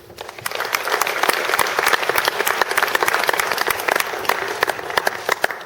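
Audience applauding at the end of a song, dense clapping that builds quickly and dies away near the end.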